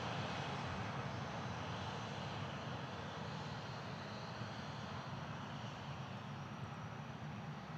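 Jet engines of a Boeing 737-800 (CFM56-7B turbofans): a steady rushing roar that slowly fades.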